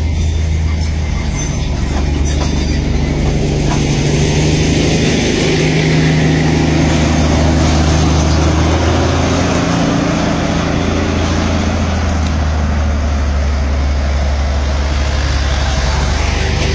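Steady engine and road noise of a vehicle driving along a hill road beside the train. A deeper engine hum swells and is loudest around the middle as the vehicle draws level with the Darjeeling Himalayan Railway's diesel locomotive.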